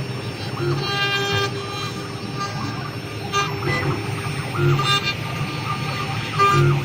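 Wood CNC router with a rotary axis running: repeated short whining tones that rise, hold and fall as the axes move, over a steady hum.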